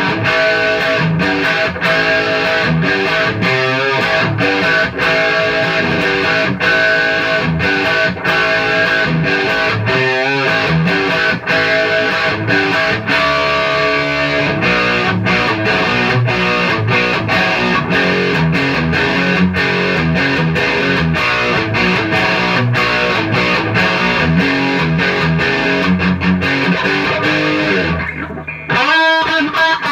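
Electric guitar through a 1969 Fender Bantam Bass combo amp, both channels jumped and the front end pushed by an OCD overdrive, giving a distorted crunch tone. Strummed chords and riffs play continuously, with a short break near the end before ringing chords start again.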